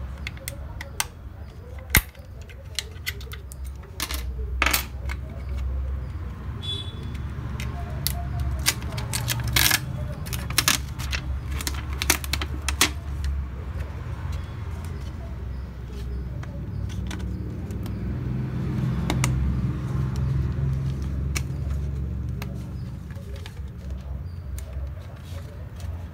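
Sharp clicks, snaps and light metallic clinks from a Sony HD-E1 external hard drive being taken apart by hand. The plastic case is pried open with a metal pry tool, and the bare 2.5-inch hard disk and its metal cover plate are handled, over a low rumble.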